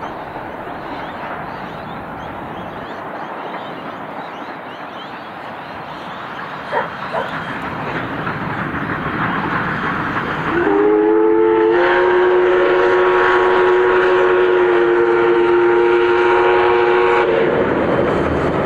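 NSW 59 class 2-8-2 steam locomotive 5917 working along the line. About ten seconds in its steam whistle blows one long blast of several steady tones sounding together, which slides up as it opens and lasts about seven seconds.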